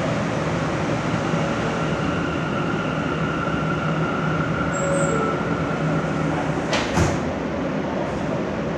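Inside an R160 subway car: the train running with a steady rumble and a faint steady whine that fades out after about six seconds. A single sharp clunk comes about seven seconds in.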